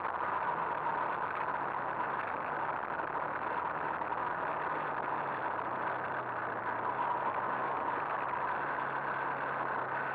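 Two-stroke moped engine running steadily while riding along a dirt track, its pitch holding fairly even with only small changes in speed.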